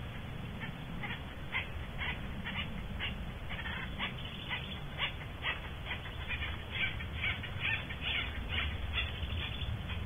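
Barn owls in the nest box making short, high calls, two or three a second.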